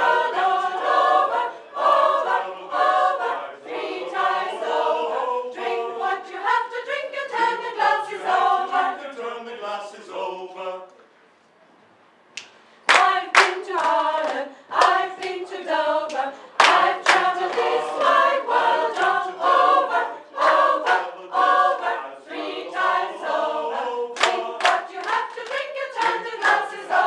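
Choir singing a cappella. About eleven seconds in the singing breaks off for a couple of seconds, then resumes with the singers clapping their hands to the beat.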